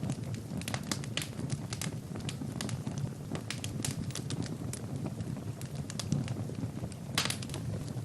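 Wood fire burning in a fireplace: a steady low rumble of flames with frequent sharp crackles and pops from the burning logs, a quick flurry of pops near the end.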